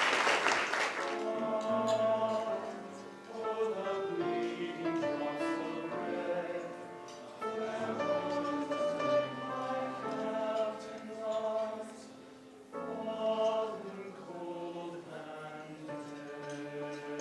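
Applause dies away in the first second, then music begins: several parts holding long notes together, in phrases separated by short breaks.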